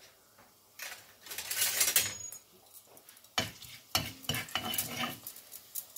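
Whole spices sizzling in hot oil in a small wok, then a wooden spatula stirring and scraping them around the pan from a little past the midpoint.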